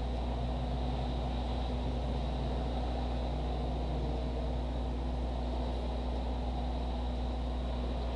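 Steady low hum with an even hiss: background room noise.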